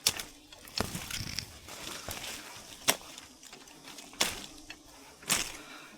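A series of six sharp knocks or snaps at irregular intervals of about a second, the loudest nearly three seconds in.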